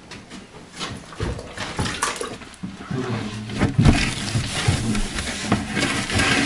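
Water sloshing and dripping as a wet cleaning cloth is rinsed and wrung out over a bucket, with the cloth rubbing on wooden furniture, the handling getting busier and louder about halfway through.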